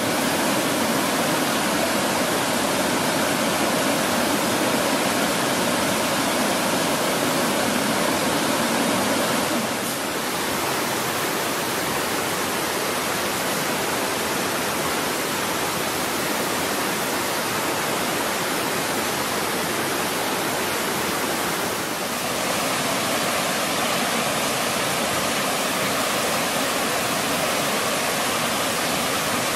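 Shallow mountain stream rushing steadily over rocks and stony riffles. The rush changes a little in tone twice, about ten seconds in and about twenty-two seconds in.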